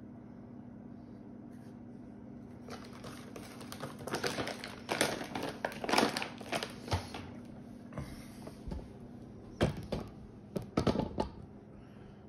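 A plastic bag crinkling and rustling as it is handled, in irregular bursts for several seconds, then a few sharper crackles about two thirds of the way through.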